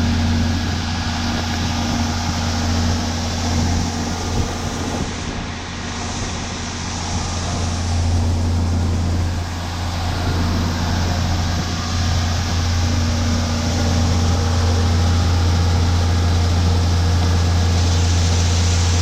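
Diesel engine of harvest machinery (tractor or combine) running steadily, a deep constant drone over broad machinery noise, growing slightly louder and steadier in the second half.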